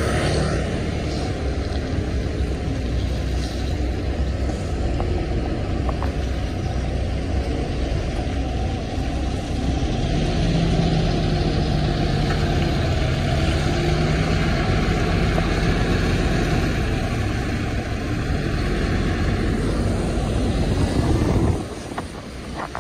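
Sleeper coach's diesel engine running as the bus pulls past close by, with a stronger low engine note in the middle. The sound drops off abruptly near the end.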